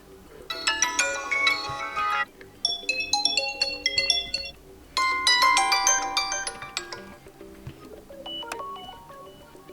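Vivo Y01 smartphone ringtones previewed one after another through the phone's speaker. Short electronic melodies of about two seconds each stop suddenly before the next begins, and a quieter tone plays near the end.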